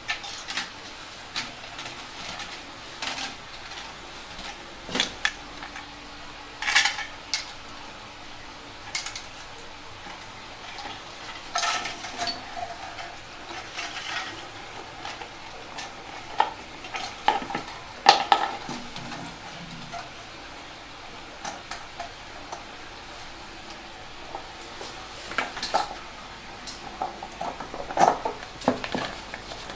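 Irregular clicks, taps and clinks of small hard parts being handled and fitted together, as homemade air gun parts (bottle, ball valve, tire valve) are worked by hand. A few louder knocks stand out, some with a short ring.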